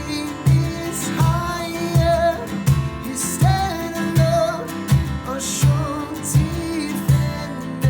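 Music: a worship song with singing over guitar and a steady beat.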